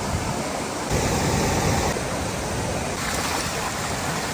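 Waterfall rushing, a loud steady wash of falling water whose tone shifts abruptly about once a second.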